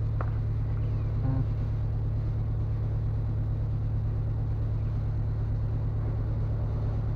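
Steady low mechanical drone with a fine even pulse, like a running engine, with a couple of light clinks in the first second and a half.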